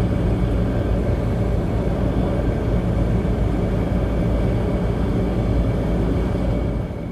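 Steady rumble of engine and road noise from a third-generation Toyota 4Runner driving at speed, easing slightly near the end.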